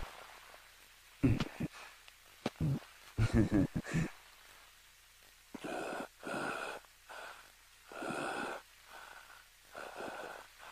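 A person breathing heavily, panting in regular breaths about once a second, after a few short, sharp sounds in the first four seconds.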